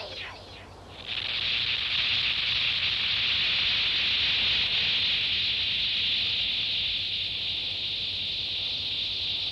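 The tail of a monster's screeching cry, its falling screeches fading out. About a second in, a steady high-pitched hissing sound effect starts and holds.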